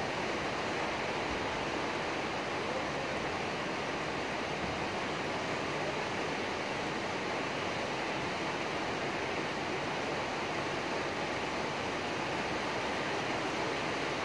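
Steady rain falling, an even hiss that holds unchanged throughout.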